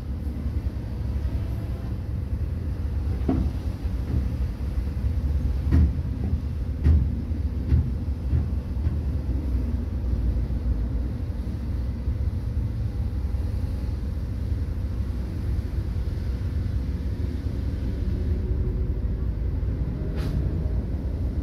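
Heavy diesel earthmoving machinery running, a steady low engine rumble with a few sharp clanks in the first several seconds.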